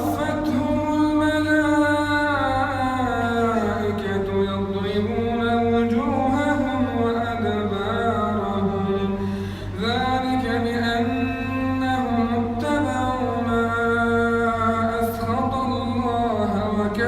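A man's voice chanting Quran recitation in a slow melodic style, drawing out long wavering notes, with a short break for breath about ten seconds in. A steady low hum runs underneath.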